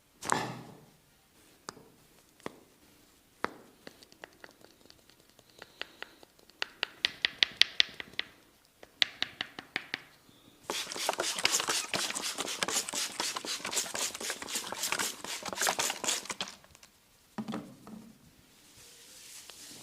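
Percussive massage on the body: scattered single slaps and taps, then rapid runs of sharp tapping strokes at several strokes a second, the longest and densest run in the second half.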